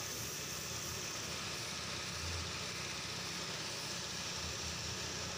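Air spray gun hissing steadily as it sprays clear coat onto car-body paintwork.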